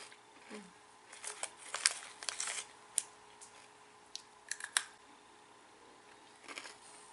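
Short, sharp crunches and clicks in scattered clusters as someone bites and chews kokuto peanuts, peanuts coated in Okinawan brown sugar.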